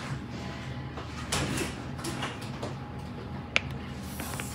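A few light clicks and taps of handling, with one sharper click about three and a half seconds in, over quiet room background.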